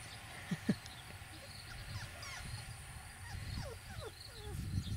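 Beagle puppies whimpering, a string of short, high squeaks that fall in pitch, with two short low sounds about half a second in.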